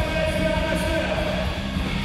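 Live rock band playing, with drums, bass and electric guitar. A long held note over the beat fades about a second and a half in.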